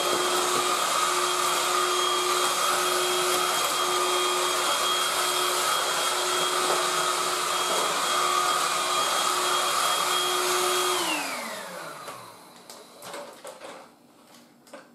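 Tefal Dual Force TY6751 cordless stick vacuum cleaner running steadily with a high whine. About eleven seconds in it is switched off and the motor's whine falls as it spins down, followed by a few faint clicks.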